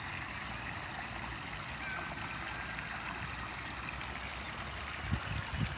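Water running steadily over a small park waterfall into a pond. A couple of low thumps come near the end.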